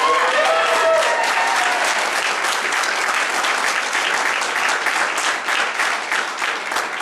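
Audience applauding: many hands clapping steadily, with a voice heard over the clapping in the first second or so.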